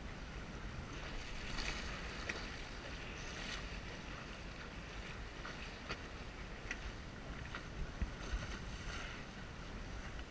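Water splashing and rushing along a Lightning sailboat's hull under sail, with wind rumbling on the microphone. A few light clicks are scattered through it.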